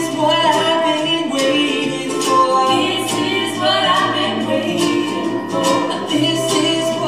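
Live acoustic band playing a song: several voices singing together in harmony over strummed acoustic guitar and upright bass.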